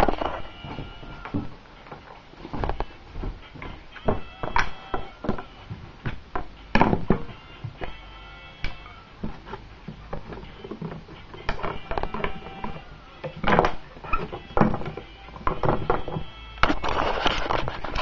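Background music with short held notes, mixed with irregular sharp knocks and clicks.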